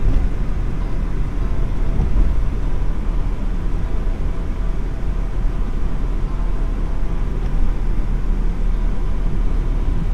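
Steady low rumble of road and engine noise from a vehicle driving along.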